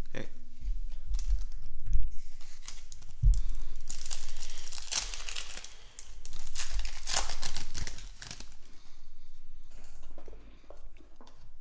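Trading-card pack wrapper being torn open and crinkled, loudest in the middle, with a couple of low handling bumps before it.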